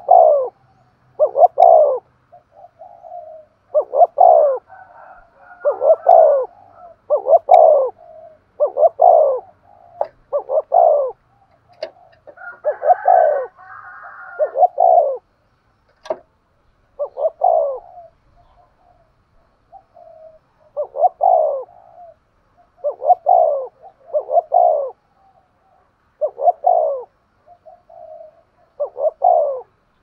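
A spotted dove giving its repeated 'gù' cooing, loud and close: short coos, each falling in pitch, every one to two seconds with a few brief pauses.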